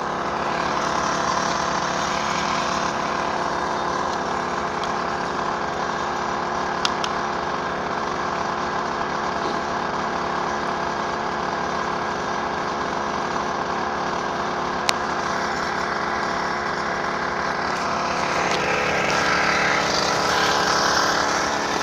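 A small engine running steadily, with a sharp click about fifteen seconds in.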